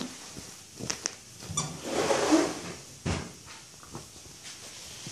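A dog tussling with a rubber-and-fabric toy on a fleece dog bed: rustling, scuffling and knocking, with a couple of short high squeaks about a second in, a louder scuffle about two seconds in and a sharp thump about three seconds in.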